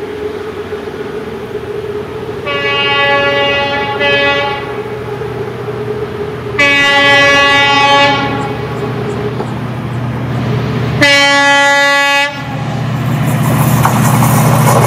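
WDP 4D diesel-electric locomotive (EMD GT46PAC) sounding its air horn as it approaches: a long blast and a short one, then two more long blasts, over the steady drone of its diesel engine. Near the end the engine and the rush and clatter of the wheels grow loud as the train comes alongside.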